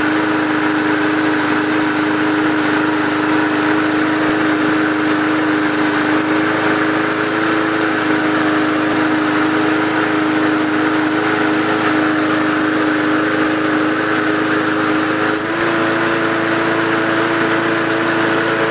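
Briggs & Stratton 3.5 hp single-cylinder four-stroke lawnmower engine running steadily at governed top speed, around 3100 to 3300 rpm, its governor tab bent forward to make it rev higher. The pitch shifts slightly about fifteen seconds in.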